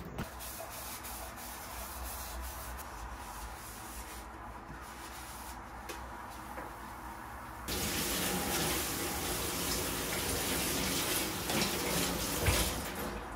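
Tap water running into a stainless steel sink while dishes are rinsed by hand. The water gets suddenly louder about eight seconds in, and there is a brief knock near the end.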